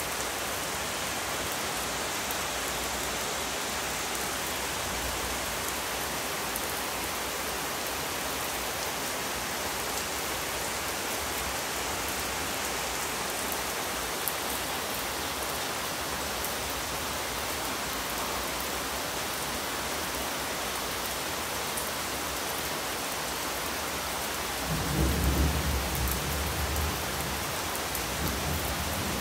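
Heavy rain pouring steadily on a wooden deck and the surrounding trees. Near the end, a low rumble of thunder swells up and dies away over a few seconds.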